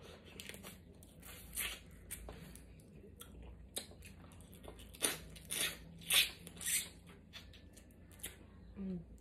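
Close-miked eating of snow crab legs: chewing and mouth sounds, mixed with short crackly sounds as the meat is pulled from the shells by hand. The sounds come irregularly and are loudest about five to seven seconds in.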